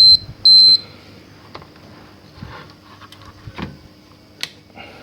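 Short high-pitched electronic beeps, the last two of a run of three falling about half a second apart at the very start, then a few light clicks and taps of handling on the bench.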